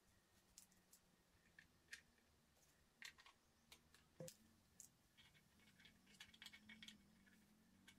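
Faint, scattered clicks and taps of small metal mounting brackets and screws being picked up and laid against a plastic underseat subwoofer enclosure as it is turned over, over a low steady hum.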